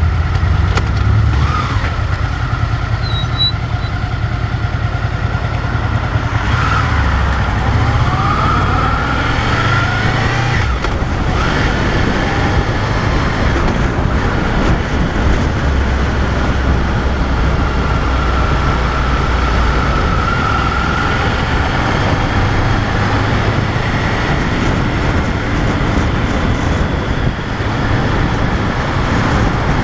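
Honda VFR800 V4 motorcycle engine running under way, recorded on the bike with a steady rush of wind and road noise. The engine note rises and falls with the throttle, climbing a couple of times.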